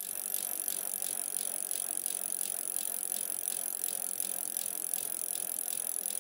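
A bicycle rolling along pavement: a steady hiss with a light rattling tick repeating about four or five times a second.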